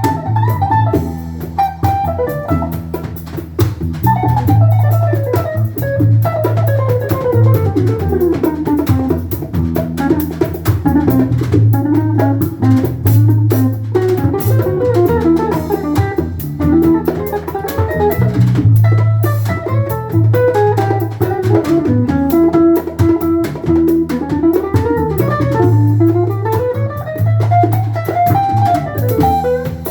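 Band playing an instrumental passage on guitar and drum kit, with a lead melody line wandering up and down over a steady bass.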